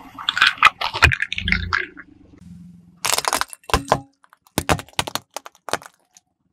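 Hard plastic toys cracking and breaking under a car tyre: a dense run of snapping cracks with a low thud in the first two seconds, then separate sharp cracks from about three seconds in as plastic toy whistles shatter.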